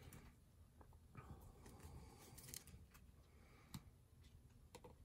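Faint rustling and a few soft, scattered clicks of board-game cards being drawn from a deck and handled on a tabletop.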